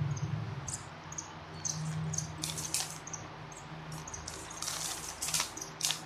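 GAN 3x3 speed cube being turned rapidly by hand during a timed solve: a fast, irregular run of plastic clicks and clacks, over a low steady hum.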